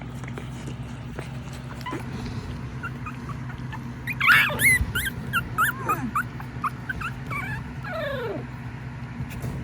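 Jack Russell–Pomeranian puppies whimpering and yipping: a run of short, high squeaks starting about four seconds in, several sliding down in pitch, over a steady low hum.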